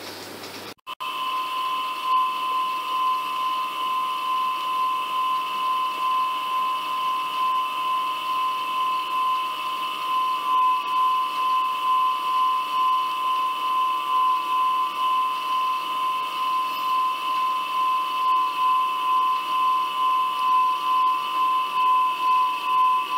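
A steady high-pitched whistling whine, with a second fainter tone above it, swelling slightly about once a second; it starts abruptly after a short dropout about a second in.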